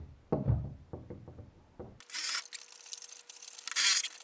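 Knocks from handling, then a cordless drill boring into the fibreglass-taped wooden edge of a small boat hull in two short bursts, about two seconds in and again near the end.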